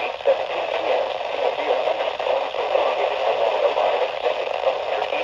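Weather radio receiver on weak reception, a steady hiss of static with no clear words through it.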